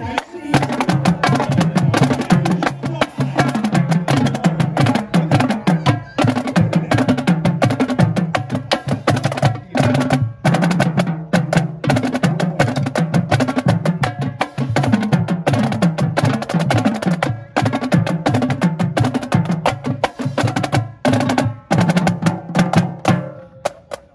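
A marching drumline of snare drums, tenor drums and bass drums playing a fast cadence, with a few very short breaks between phrases.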